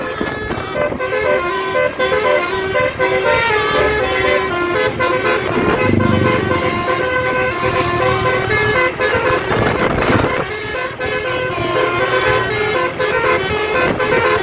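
A bus's basuri telolet musical air horn playing a melody of held notes that step from pitch to pitch, over the bus's engine and road noise. There is a brief rush of noise about ten seconds in.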